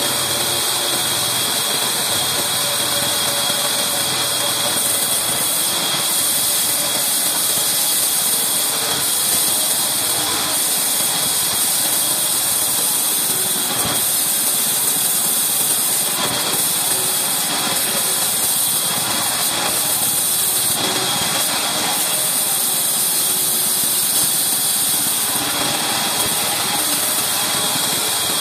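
Large band saw ripping a thick old wooden beam lengthwise: a steady, loud, hissing whir of the blade cutting through the timber.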